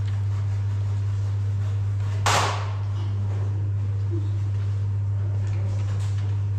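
A steady low hum throughout, with one short, sharp swish about two seconds in.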